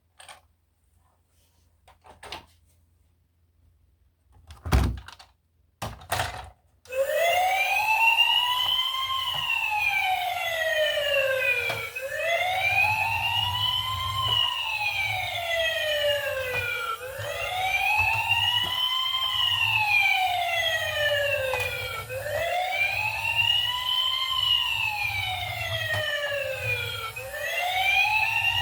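Electronic wail siren of a toy emergency vehicle, its pitch rising and falling about every five seconds with a faint low buzz underneath. It starts about seven seconds in, after a few knocks and a loud thump.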